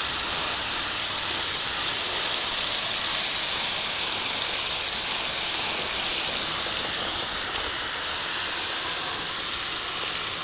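Water spraying steadily onto the coil of an old Bryant air conditioner condenser, an unbroken high hiss.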